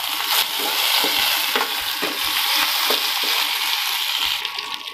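Browned onions and curry leaves frying in hot mustard oil in a metal kadai, sizzling steadily, while a spatula stirs and scrapes against the pan, knocking about once a second. The sizzle drops off near the end.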